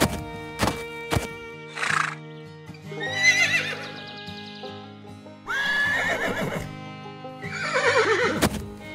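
Horses neighing three times over background music. Each whinny is a wavering call, and the last falls in pitch. A few sharp knocks come in the first second.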